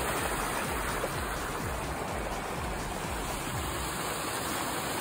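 A steady, even rushing noise with a low rumble underneath, and no voices or other distinct sounds in it.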